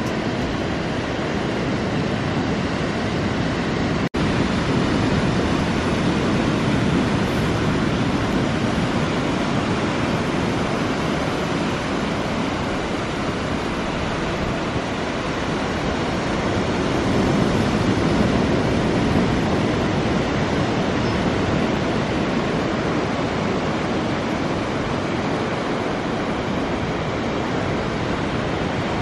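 Steady rushing of surf on the beach, mixed with wind on the microphone, with a brief break in the sound about four seconds in.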